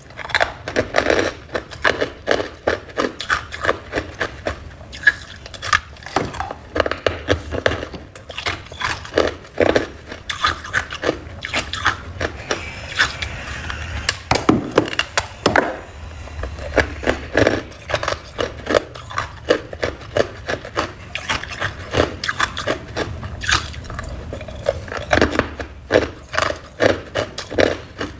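Crunchy freezer frost being bitten and chewed close to the microphone: rapid, irregular crisp crunches, several a second, with no letup.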